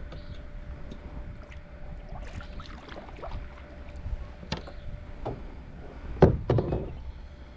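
Kayak on the water with a few sharp knocks and bumps, the loudest about six seconds in, over a steady low rumble and a faint steady tone.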